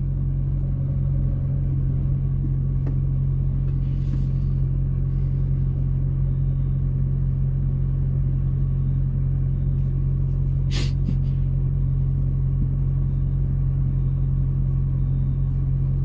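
Truck's diesel engine idling steadily, heard from inside the cab while the truck stands stopped on the road. One short sharp noise about eleven seconds in.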